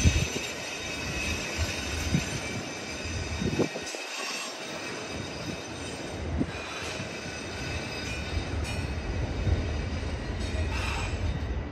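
Freight train of autorack cars rolling steadily past, a continuous rumble of wheels on rail with thin high-pitched wheel squeal running through it.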